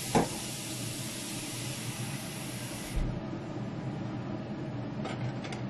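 Kitchen tap running in a steady hiss, shut off suddenly about three seconds in with a soft knock.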